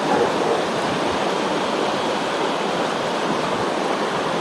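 Flowing creek water, a steady rushing hiss.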